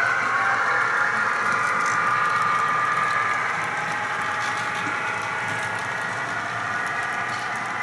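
HO scale model freight train passing on the layout: a steady whine from the model locomotive with faint ticking of the cars' wheels over the track. The whine drops a little after about three and a half seconds as the locomotive moves on.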